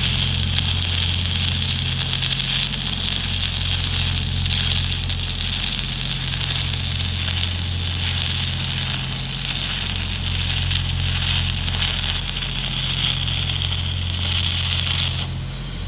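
Stick-welding arc from a cellulose-coated E6010/E7010 rod, a steady crackling hiss that cuts off suddenly about 15 seconds in as the arc is broken. A steady low hum runs underneath throughout.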